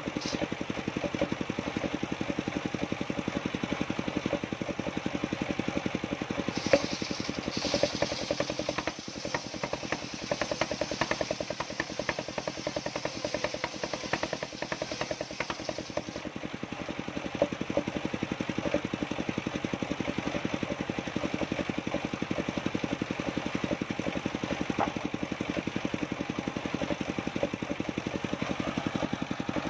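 An engine running steadily with a rapid, even pulse.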